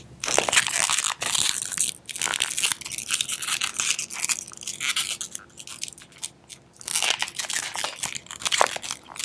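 Latex twisting balloons rubbing and crackling against each other and the hands as they are twisted and wrapped, a dense run of rubs that eases off for a moment past the middle.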